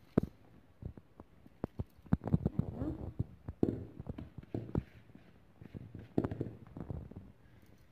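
Plastic bowl being emptied of moistened couscous into a metal couscoussier steamer basket: irregular taps and knocks as the grains are shaken and scraped out by hand.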